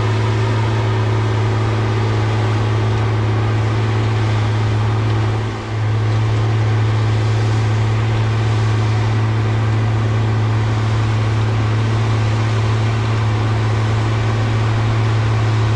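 Challenger MT765C track tractor's diesel engine running steadily under load as it pulls a field cultivator, a loud, even drone with a deep steady hum. The sound dips briefly about five and a half seconds in.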